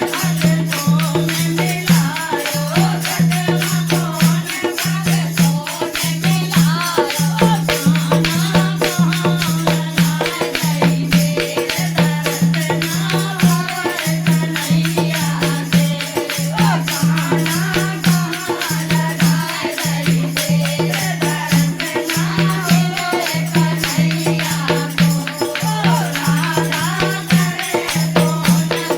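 Hindi devotional bhajan music: a melodic voice over a low beat pulsing about once a second, with jingling, rattling hand percussion like a tambourine.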